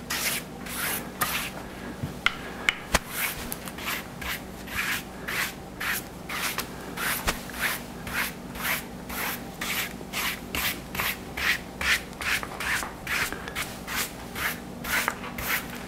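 Stiff palm-fiber mounting brush scrubbed back and forth over damp backing paper, a steady run of bristly brushing strokes about two a second. The strokes press the backing paper onto the wet-mounted rice-paper painting so that the two layers stick together.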